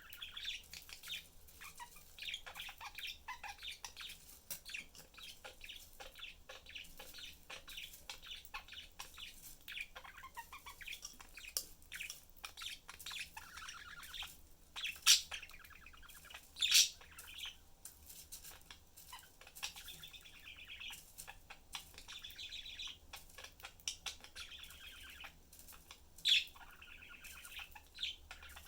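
Pet budgerigars chattering with a dense run of short, quick chirps, with a few louder, sharper sounds about halfway through and again near the end.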